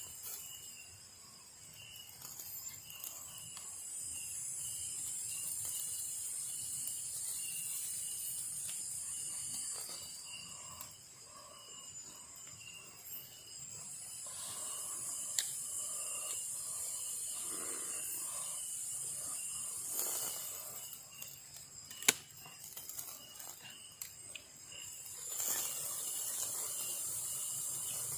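Night-time tropical forest insect chorus: a steady high buzzing with a chirp repeating about twice a second underneath. A few sharp clicks stand out, the loudest a little after the middle.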